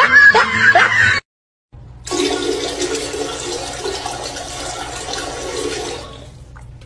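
A raised voice cut off abruptly about a second in, then after a brief silence a steady rushing noise for about four seconds that eases off near the end.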